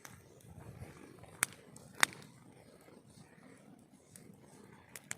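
Wood campfire burning: a low rustle of flames broken by a few sharp pops of burning wood, the loudest about two seconds in.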